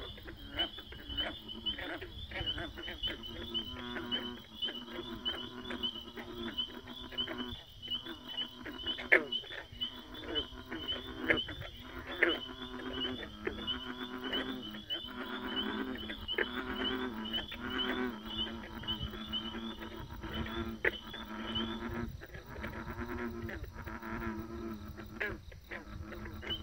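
A chorus of frogs calling from a pond: low, repeated croaking calls overlap, with occasional sharp clicks. Above them a high-pitched call repeats about three times a second and stops about 22 seconds in.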